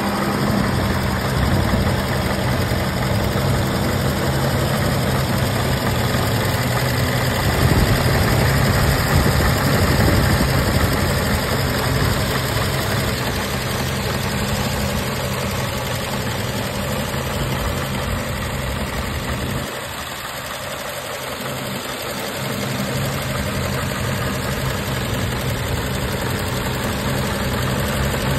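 1950 Chevrolet 3100 pickup's inline-six engine idling steadily with the hood open, heard from over the engine bay. The deep part of the sound drops away briefly about twenty seconds in.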